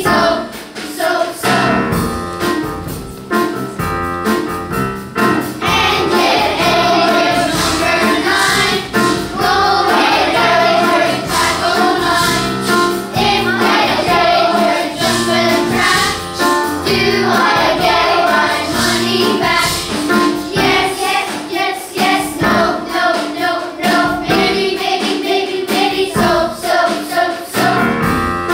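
A children's choir singing a song in unison, with an instrumental backing of steady low notes underneath.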